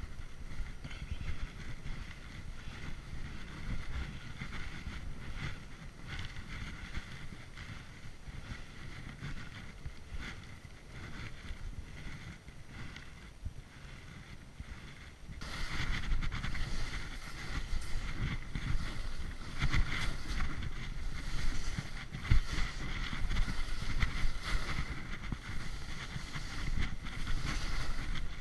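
Wind rushing over an action camera's microphone and skis running over snow as a skier descends, a steady noisy rush with a low rumble that becomes abruptly louder and brighter about halfway through.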